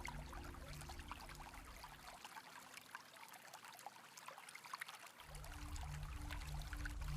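Steady rain falling, a dense patter of small drop ticks. Under it runs a low pulsing tone, about two pulses a second, which drops out for about three seconds in the middle and then comes back.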